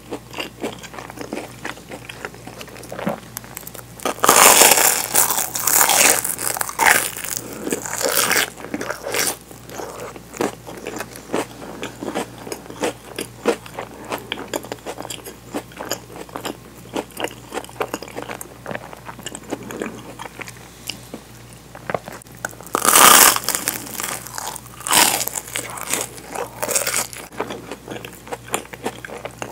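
Bites into a crisp toasted sandwich filled with Nutella, with loud crunching of the toasted crust about four seconds in and again past twenty seconds, and steady crunchy chewing in between.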